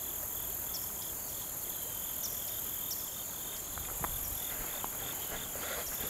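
Insects singing: a steady high-pitched hiss overlaid by a regular pulsing chirp that repeats several times a second, with a few faint clicks around four to five seconds in.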